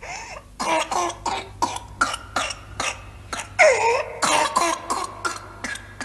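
A child's whooping-cough fit: a rapid run of short coughs, several a second, broken a little over halfway through by a long drawn-in breath with a whoop, then more coughs. Fits of coughing with a whoop on the in-breath are the mark of whooping cough (pertussis).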